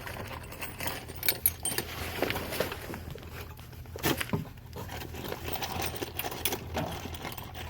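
Irregular light metallic clicks and clinks as a metal junction-box bracket is shifted and seated flat against a wooden joist.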